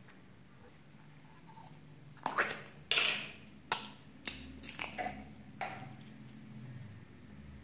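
A plastic slime tub handled and clear slime poked and squeezed with the fingers: a run of sharp clicks and sticky pops a couple of seconds in, easing off into softer handling noise.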